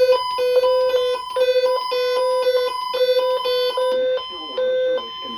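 Electronic alarm beeping: a fast pattern of short, steady-pitched beeps that switch between tones several times a second. About four seconds in, it slows into longer beeps.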